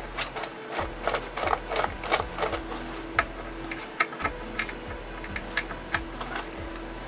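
Small screwdriver loosening the screws of a plastic toy RC car's battery cover: irregular light clicks and ticks, a few a second.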